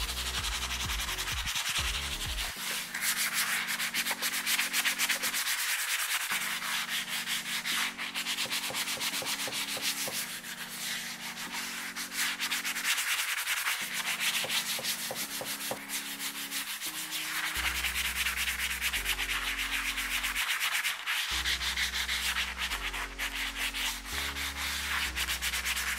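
Hand sanding a wooden cabinet door with a flexible abrasive sanding sponge: a rasping scrub in repeated back-and-forth strokes, swelling and fading with each pass. The surface is being roughened to key it for primer.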